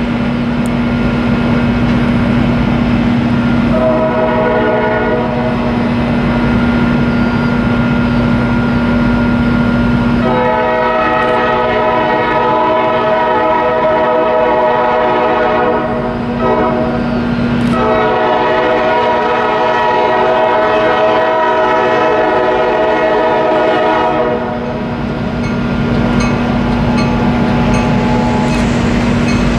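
Norfolk Southern diesel locomotive's multi-chime air horn sounding long, long, short, long, the pattern blown for a grade crossing, with a fainter blast near the end. A steady low hum and rail rumble run underneath.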